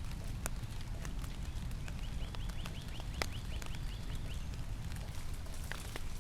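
Rain falling, individual drops ticking and pattering over a low steady rumble. About two seconds in, a rapid high trill of short chirps, roughly eight a second, runs for about two and a half seconds.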